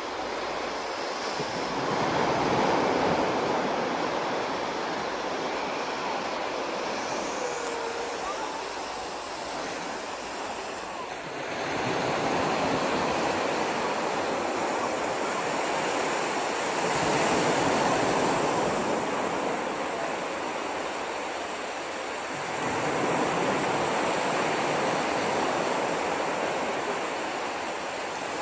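Sea surf breaking on a sandy beach: a steady rush of water that swells and eases again every five seconds or so as each wave comes in.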